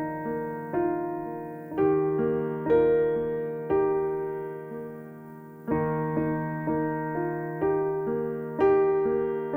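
Keyboard playing slow, soft chords, one struck about every second and left to fade, over a held low note, with a longer pause near the middle.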